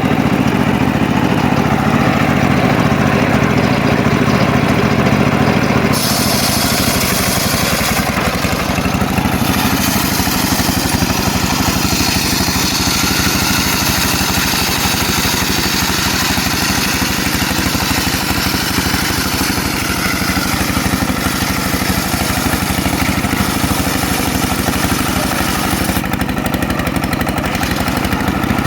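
Engine of a homemade circular sawmill running steadily, with a high hissing rasp joining about six seconds in and dropping away near the end as the blade cuts through a mahogany log.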